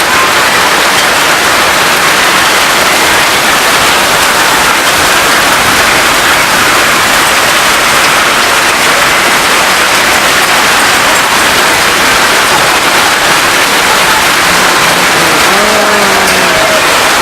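Hailstorm with heavy rain: a loud, steady, dense noise of hail and rain pelting down.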